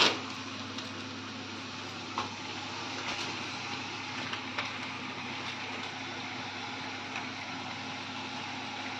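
Tomato masala sizzling steadily in a steel kadhai over a gas burner. One sharp metal clink right at the start, and a few lighter clinks as a steel spoon stirs the pan.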